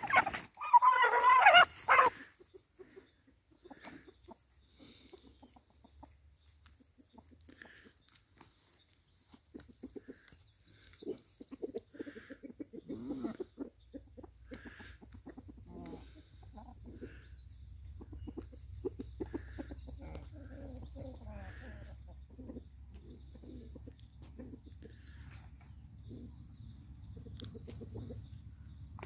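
A rooster squawks loudly and flaps its wings for about two seconds as it jumps onto a goat's back. Short, quieter clucks from roosters follow at scattered moments, over a low rumble in the second half.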